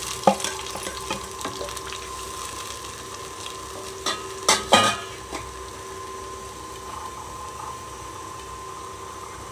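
Wooden spatula stirring liquid in a nonstick pot, knocking against the pot now and then, with a few sharper taps about four and a half to five seconds in, over a steady low hiss. This is tamarind-tomato water just added to hot tempered spices for rasam.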